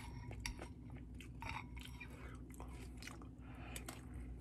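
Close-up chewing of a spoonful of rice soaked in ramen broth: soft wet smacks and small mouth clicks, a little louder about a second and a half in, over a faint steady low hum.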